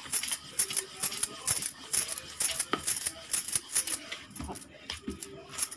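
Crinkly rustling and light rattly clicks, about three or four a second, thinning out near the end.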